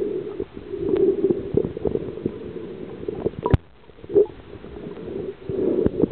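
Muffled, gurgling water noise with scattered short clicks and one sharp knock about three and a half seconds in.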